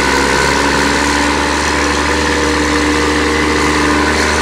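New Holland T6080 tractor's diesel engine running steadily under load as it drives past towing a slurry tanker.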